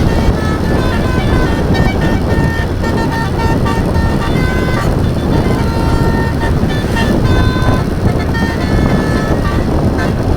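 Telolet horn, a multi-tone musical air horn, playing runs of short notes that jump between pitches like a tune. Underneath is a steady rumble of engine and road noise.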